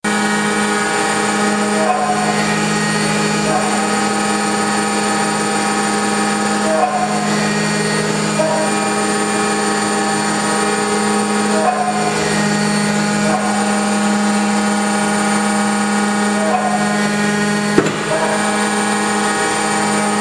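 Hydraulic power unit running steadily: a loud pump-and-motor hum with many overtones. The tone shifts briefly every few seconds as the cylinder's flow changes direction and load. A single sharp knock comes near the end.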